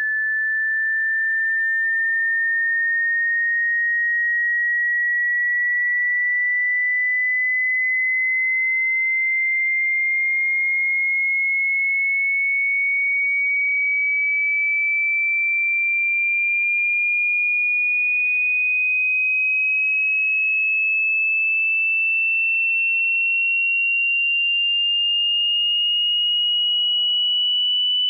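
Hearing-test sine tone: a single pure electronic tone gliding slowly and evenly upward in pitch at a steady level.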